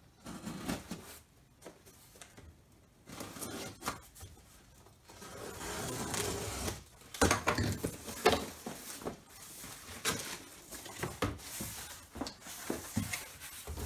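A cardboard shipping box being opened by hand: a blade slitting the packing tape with faint scratches, then a long scrape as the taped flaps are pulled apart about five seconds in, followed by many short crackles and rustles of cardboard flaps and plastic wrap.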